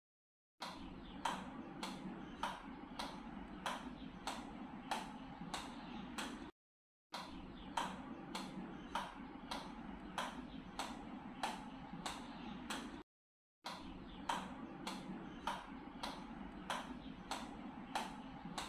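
Plastic table tennis ball bounced repeatedly on a ping-pong paddle: light, even taps about two a second over a steady low hum. The taps are broken three times by half-second drops to dead silence.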